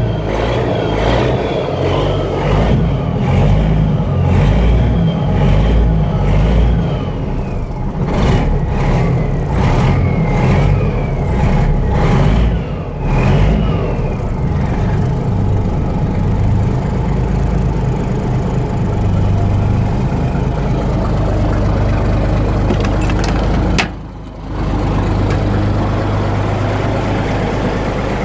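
Kenworth W900 semi truck's diesel engine running soon after a cold start, revved up and down several times with a whistle falling away after each rev, then settling into a steady idle from about halfway. The sound dips briefly near the end.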